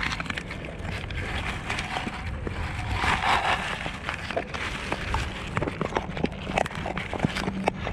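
A pit bull chewing a cow ear: a run of sharp cracks and crackles as it bites down, with a louder stretch of crunching about three seconds in, over a steady low rumble.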